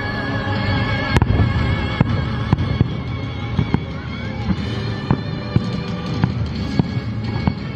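Fireworks going off as a string of sharp pops, one every half second to a second or so, over steady music.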